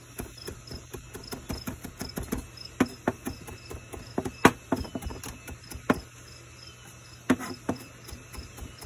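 Chef's knife chopping cilantro finely on a plastic cutting board: quick, uneven knocks of the blade on the board, several a second, with a short pause about six seconds in.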